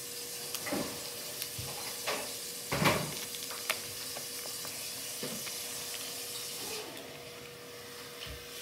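Steady background hiss with a faint constant hum, broken by a few soft knocks and rustles from things being handled, the clearest about three seconds in.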